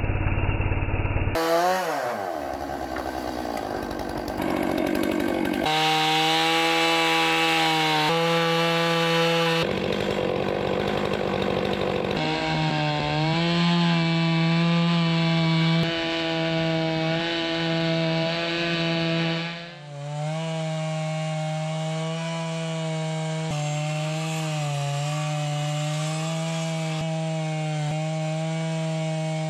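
Large two-stroke chainsaw running at full throttle on a Logosol F2 chainsaw mill, ripping lengthwise through a cedar log with a steady high engine note. The sound breaks off and restarts several times, with a short dip about 20 s in.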